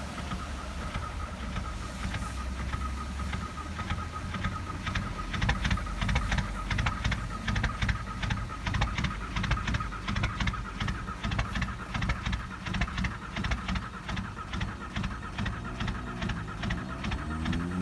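Volkswagen Jetta's 1.9 TDI (ALH) four-cylinder diesel running just after a cold start at −31°C, its exhaust straight-piped with the catalytic converter and muffler removed. It gives a loud, fast, even diesel clatter that grows sharper about five seconds in.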